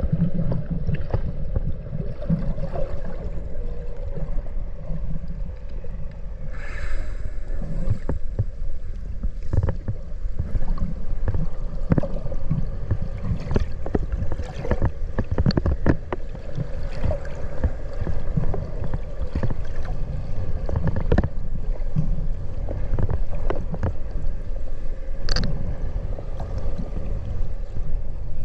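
Underwater sound picked up by a camera beneath the sea surface: a steady low hum under rumbling water noise, with scattered clicks and crackles and a brief higher-pitched sound about seven seconds in.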